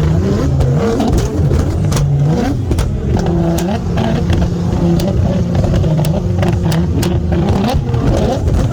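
Nissan GT-R R35's twin-turbo 3.8-litre V6 revving, its pitch climbing and dropping several times, with short sharp cracks scattered throughout.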